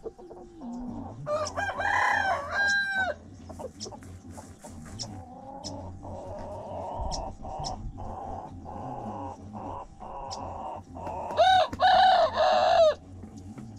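Rooster crowing twice, each crow about a second and a half long and the two about ten seconds apart, with softer clucking from the flock in between.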